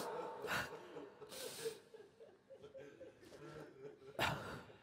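A man weeping quietly: a few sniffs and catching breaths, the strongest near the end.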